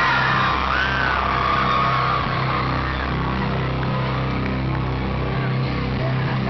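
A live band playing loudly through a concert PA, with a heavy, sustained bass. Fans yell and whoop over it during the first couple of seconds.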